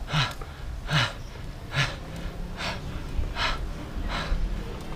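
A cyclist breathing hard while riding, about one loud breath every 0.8 seconds, over a low rumble of wind and road noise.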